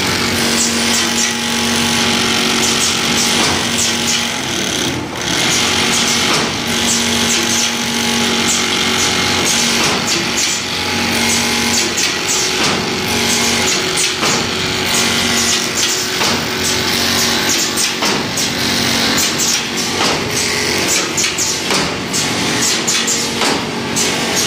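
Semi-automatic bag stitching machine running, its sewing head stitching bags one after another with a steady mechanical clatter. A low hum comes and goes every couple of seconds over the clatter.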